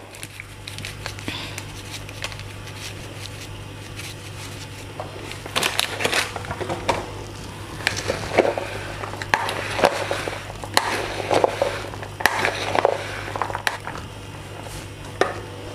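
Large spoon stirring boiled chickpeas and potato cubes in a plastic bowl: an irregular run of wet scrapes and clicks starting about five seconds in, over a steady low hum.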